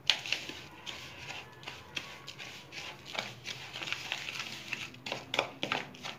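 A small steel spoon stirring and scraping coarse ground fennel-and-mustard pickle masala mixed with raw oil in a plastic bowl: a run of irregular, soft scratchy strokes.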